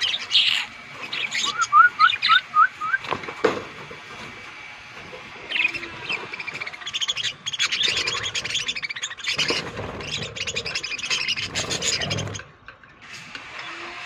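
A flock of budgerigars chattering and chirping, with a quick run of five short rising chirps about two seconds in and a denser stretch of chatter in the second half.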